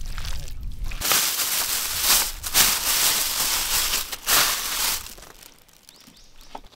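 Thin clear plastic bag crinkling as it is pulled and stretched over a wooden bowl to cover it. Starts about a second in, runs for about four seconds, then dies down.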